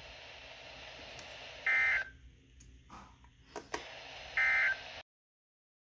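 Two short bursts of warbling data tones, the digital SAME end-of-message code that closes an NOAA Weather Radio test, sent over a faint radio hiss. There are a couple of clicks between the bursts, and the sound cuts off abruptly a moment after the second.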